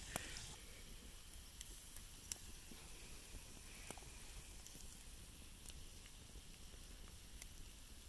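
Faint, steady sizzling of food cooking over a campfire, with scattered sharp crackles from the burning wood.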